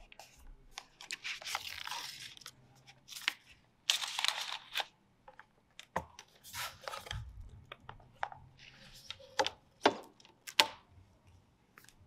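A new Apple Magic Keyboard case being unwrapped and handled: bursts of rustling, tearing-like scraping noise, then several sharp clicks and taps as the case is folded open and moved about.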